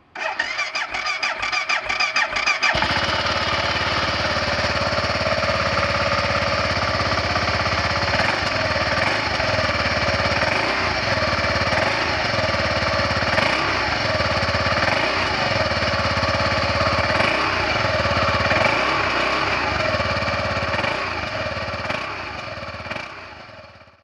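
BMW G650GS Sertao's single-cylinder engine being started through its stock silencer. The starter cranks with a pulsing beat for about two and a half seconds before the engine catches, then it runs steadily and fades out near the end.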